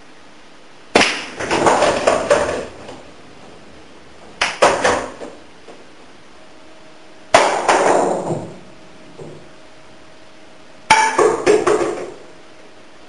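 Pool balls struck by a cue and clacking together: four bursts of sharp clicks a few seconds apart, each dying away within about a second and a half.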